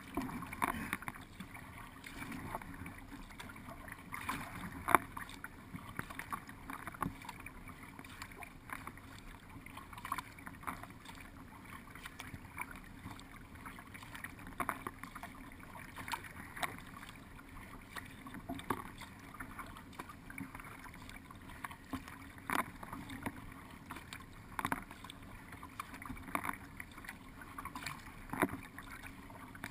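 Paddle strokes in the water, a splash about every two seconds, over a steady wash of water along the hull.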